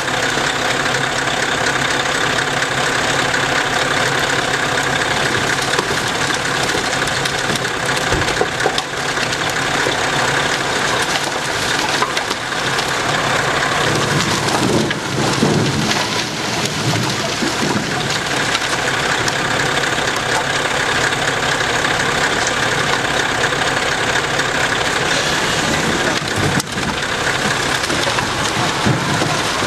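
Scania 144G 460's V8 diesel running steadily as its hooklift tips the container, with a continuous clatter of split firewood sliding and tumbling out of the tipped container.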